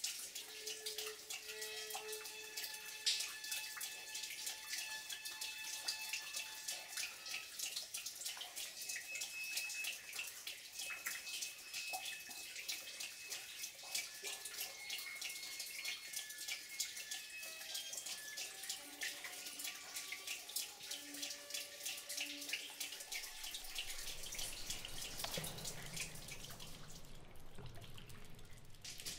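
Water dripping and splashing onto wet rock: a dense, steady patter of drops with short pitched plinks among them. A low hum joins near the end.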